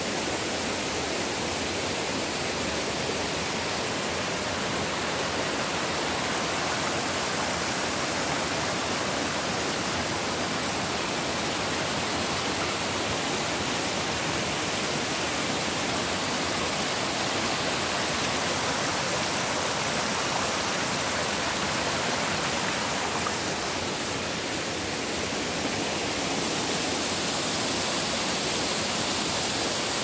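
Steady rush of creek water tumbling over rocks and small cascades, an even hiss with no breaks.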